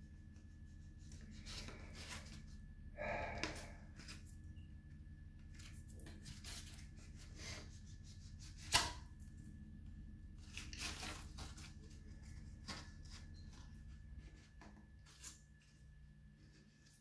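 Hands handling and working a cork bark slab: scattered scraping, rustling and small clicks, with a brief squeaky scrape about three seconds in and a sharp click near the middle, over a faint steady low hum.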